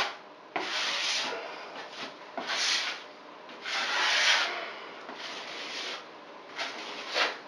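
A bare hand rubbing and smoothing wet waterproofing membrane and fiberglass mesh tape onto cement-board wall. It comes as a series of rasping strokes, roughly one a second.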